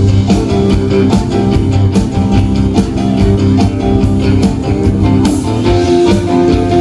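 Live rock and roll band playing an instrumental break, with no vocals and drums keeping a steady beat under the lead.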